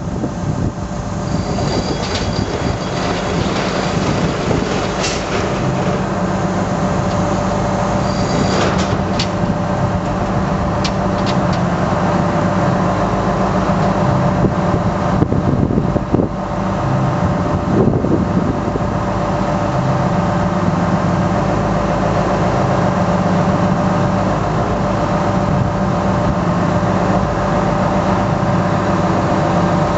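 Liebherr LRB125 piling rig's diesel engine running steadily while its hydraulics raise the mast from inclined to vertical. A few sharp clicks and high squeaks come in the first ten seconds or so.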